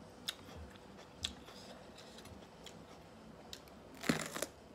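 A couple of faint clicks as a raw bell pepper is handled, then, about four seconds in, a loud crisp crunch as it is bitten into.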